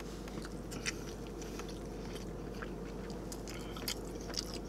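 Close-up chewing of a bite of carne asada burrito: scattered soft, wet mouth clicks over a steady low hum.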